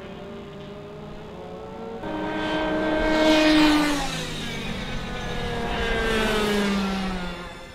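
Go-kart engines passing at speed: two pass-bys, the first and loudest about three and a half seconds in and the second about six seconds in, each rising to a peak and then dropping in pitch as it goes by, over a low engine drone.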